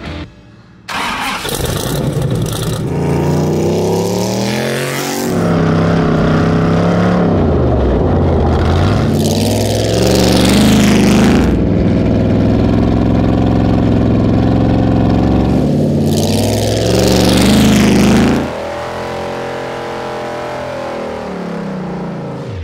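Chrysler 440 big-block V8 in a vintage Ford coupe dirt-track race car firing up about a second in, then revving and running hard, its pitch climbing and falling again and again. Near the end it drops back to a lower, steadier run.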